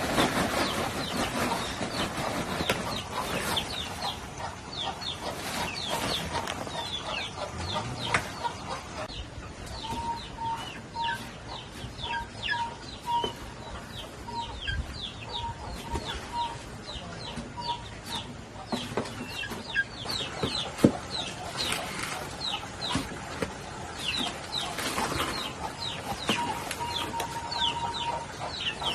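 Chickens clucking and peeping, with many short, high, falling peeps coming thick and fast. A row of short repeated notes is heard in the middle and again near the end.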